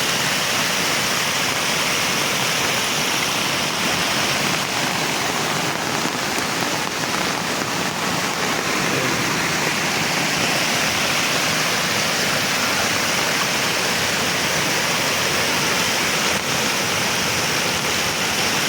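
Heavy monsoon rain falling as a steady, unbroken rush of water.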